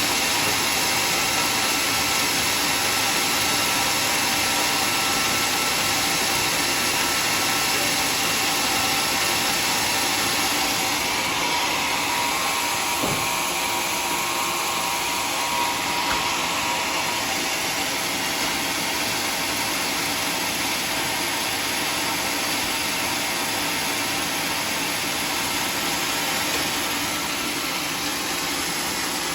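Sawmill band saw machinery running steadily, a continuous loud mechanical noise with a hum of steady tones.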